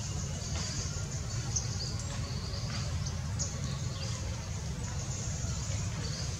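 Outdoor ambience: a steady low rumble with scattered faint high chirps.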